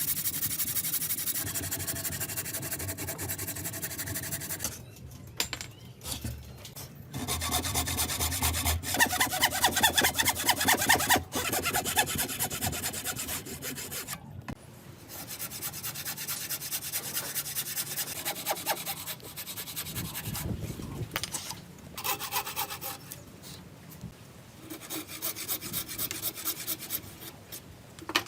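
Hand tools working wood with quick, evenly repeated back-and-forth strokes of cutting and scraping. The strokes come in several separate passages that start and stop abruptly.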